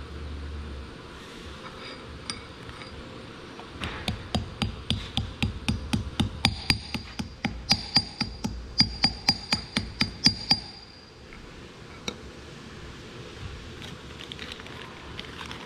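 Hammer tapping repeatedly on a steel hydraulic cylinder part, metal on metal with a ringing ping, about four taps a second for some seven seconds starting about four seconds in.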